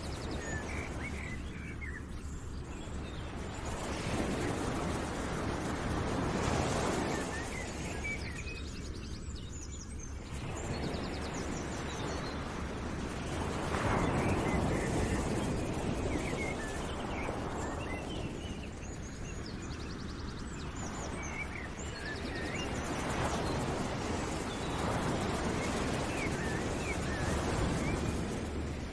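Background nature-ambience track: a rushing noise that swells and fades every few seconds, with small bird chirps over it.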